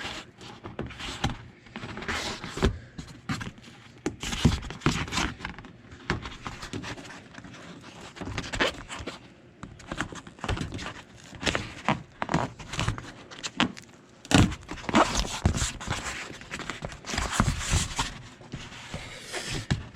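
Foam water shield being peeled off a truck door's black adhesive sealant: irregular crackling and tearing with scattered clicks and knocks, in uneven bursts.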